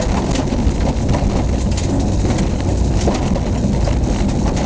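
Rally car's engine running under load on a gravel track, heard from inside the cabin as a steady drone, with frequent sharp clicks and knocks of gravel and stones striking the car.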